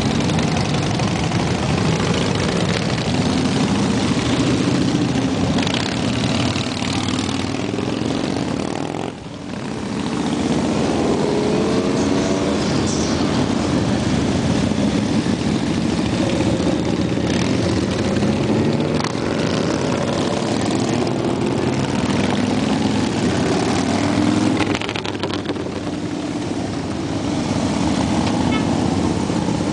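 A procession of cruiser motorcycles riding past one after another at low speed, their engines running together in a continuous rumble, each bike's pitch rising and falling as it comes by. The sound briefly drops about nine seconds in, then builds again as more bikes pass.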